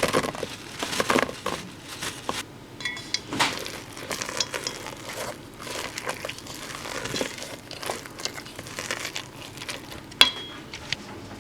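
Irregular crinkling and rustling as something crinkly is handled in a kitchen during baking, with one sharp clink that rings briefly about ten seconds in.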